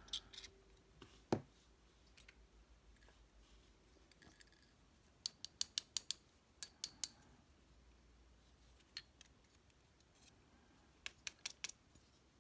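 Small metal parts of a dimple lock (pins, drivers and sliders) clicking and clinking on the bench as the lock is taken apart: a single knock about a second in, a quick run of clinks midway, and another quick run near the end.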